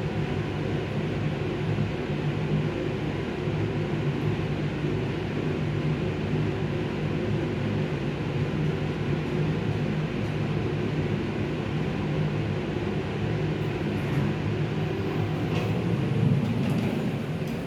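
Elevator car in motion: a steady rumble and hum of the ride heard from inside the car, with a few faint clicks near the end.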